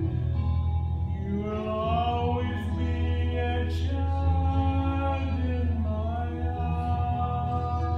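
A man singing a slow song in long held notes, over a steady musical accompaniment.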